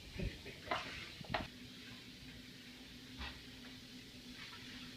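Microwave oven being started: a few short clicks and knocks, then a steady low hum from about a second and a half in as it runs.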